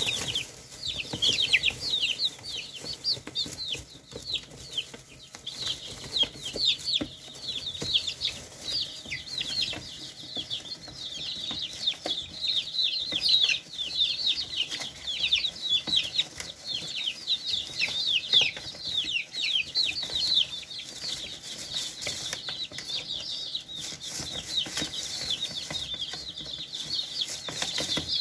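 A flock of young chickens peeping without pause: many short, high, falling chirps overlapping one another, with light taps of beaks pecking.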